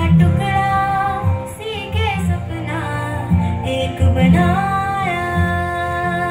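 A song with a woman singing held, wavering notes over a strong bass accompaniment.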